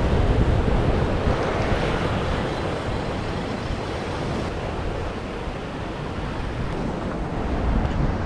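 Ocean surf washing and breaking against a rocky shoreline, mixed with wind buffeting the microphone in a steady noisy rush.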